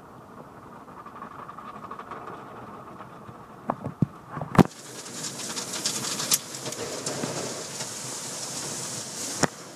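Inside a car in an automatic tunnel car wash: a low rumble with a few knocks against the car, the loudest about four and a half seconds in, then high-pressure water spraying hard against the windshield and body with a steady hiss.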